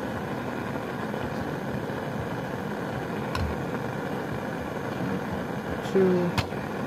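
Steady rushing noise of a lit gas Bunsen burner flame, with a light tick about three and a half seconds in and another near the end.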